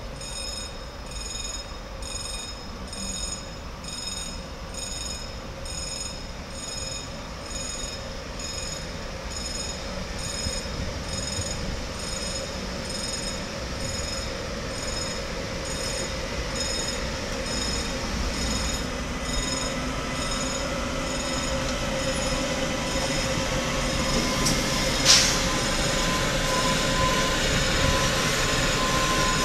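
Medway class 4700 electric locomotive hauling a container freight train, arriving slowly and growing louder as it passes. Steady high-pitched wheel and brake squealing runs through it, and there is one sharp clank about 25 seconds in.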